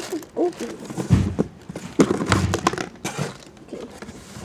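Plastic packaging crinkling and knocking against a cardboard box as a hand rummages inside for a slime container, in a run of sharp rustles and knocks.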